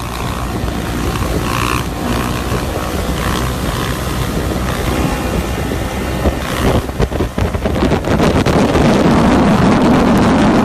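Wind rushing over the microphone of a moving camera, with a dirt bike's engine running underneath as the rider holds a wheelie. The rushing grows louder about eight seconds in.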